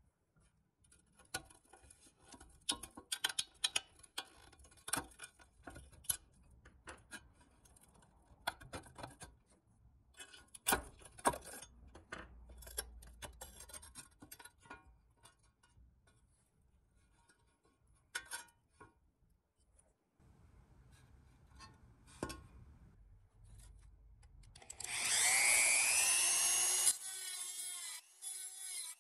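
Hand tools clicking and scraping on metal toy parts, then a small power tool runs loudly for about two seconds near the end, its whine sweeping in pitch before it cuts off.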